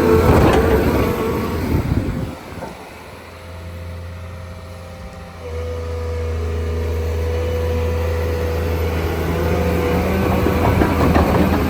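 Volvo EW210D wheeled excavator's diesel engine running. It is loud with some clatter at first, drops low about two seconds in, then comes back up about five and a half seconds in to a steady hum with a steady high whine over it.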